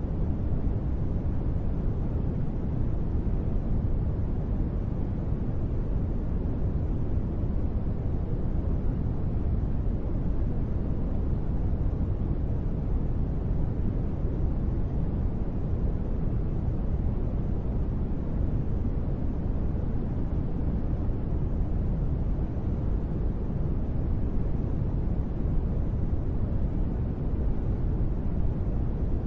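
Steady, deep rushing noise with no breaks and no separate drops or events, heavy in the low range: a continuous sleep-noise track billed as gentle, thunder-free rain.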